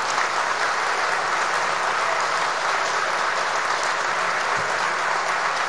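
Audience applauding steadily, with some cheering.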